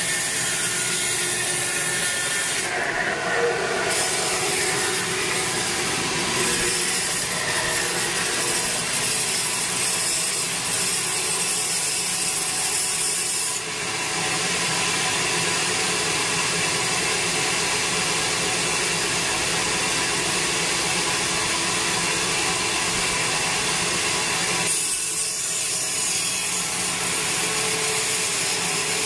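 Sawmill band saw cutting through a large teak log, the blade running steadily through the wood.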